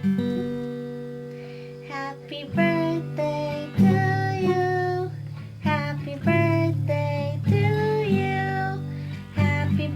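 An acoustic guitar strummed, a chord ringing out at the start, with a high voice singing a melody over it from about two and a half seconds in.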